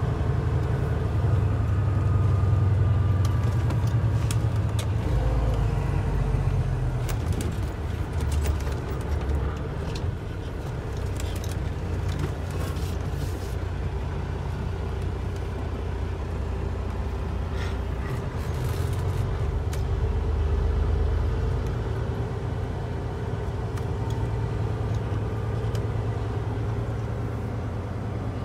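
Semi truck's diesel engine running with a low rumble that swells and eases, heard from inside the cab while driving, with a few faint clicks and rattles scattered through it.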